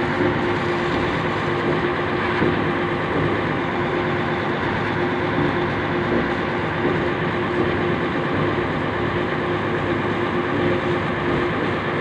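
Pressure washer running steadily, its high-pressure water jet hissing as it sprays down a concrete mixer truck, with a constant machine hum underneath.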